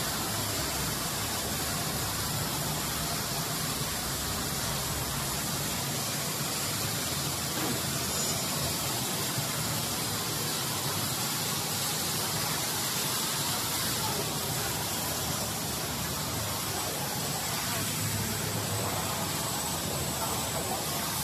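Hot melt adhesive film extrusion line running: a steady, even hiss with a low hum beneath it, without a break.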